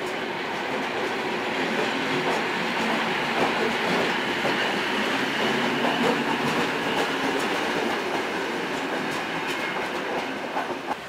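Passenger electric multiple unit running past on the station track, its wheels clattering over the rail joints. The sound fades away as the last car goes by near the end.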